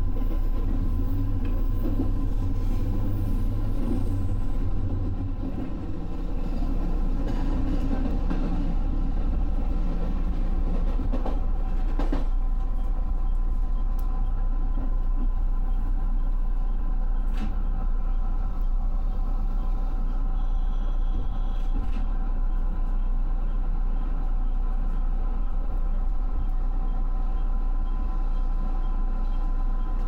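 Electric commuter train running at speed, heard from inside the driver's cab: a steady low rumble of wheels on rail with a faint steady motor tone. The rumble is heavier for the first five seconds, and a few sharp clicks come as the wheels cross rail joints and points.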